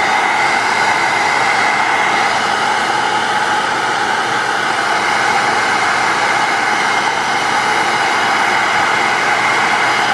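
Paint-stripper heat gun running steadily, blowing hot air: a steady rush of air over the whine of its fan motor.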